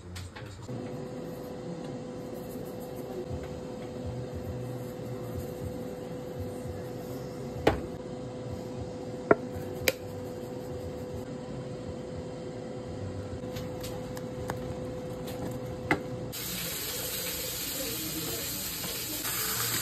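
Milk and cheese sauce simmering in a stainless saucepan while a wooden spatula stirs it, with a steady hum underneath and a few sharp knocks of the spatula against the pan. Near the end a louder, steady hiss takes over.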